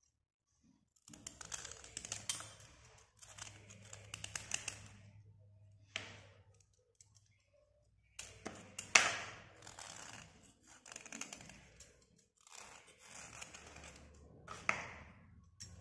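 Snap-off utility knife blade scraping the rusty crust off a slate pencil: runs of quick scraping strokes with short pauses between them, the loudest stroke about nine seconds in.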